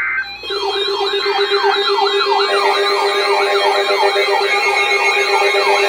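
Loud electronic siren-style alert. After a brief blip it settles into a steady low tone layered with a quickly repeating falling sweep, about three a second, and a higher wavering tone.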